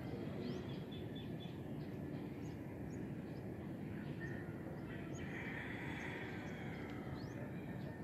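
Quiet dawn outdoor ambience: a steady low background rumble with scattered small bird chirps throughout, and a distant rooster crowing about five seconds in.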